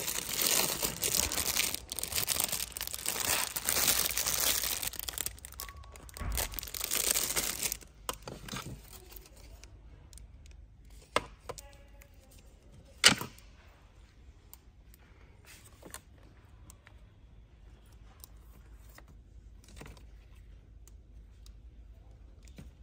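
Plastic packaging crinkling and rustling as bagged wooden utensils are handled, loud and continuous for about eight seconds. After that it goes quiet apart from two sharp clicks a couple of seconds apart.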